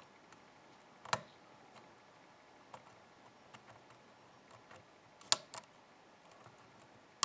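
Irregular small metallic clicks of a hook pick and tension wrench working the pins inside a challenge lock's cylinder, with a sharper click about a second in and two more close together past the five-second mark. The picker is probing for pin feedback and the core does not open.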